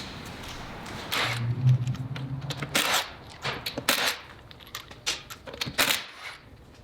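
Impact wrench running in several short, sharp bursts with a low motor hum, loosening the lug nuts to take the front wheels off.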